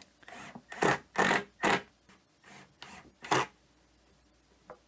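Short rasping scrapes, each well under half a second: three in quick succession about a second in, one more past the middle, and fainter ones between.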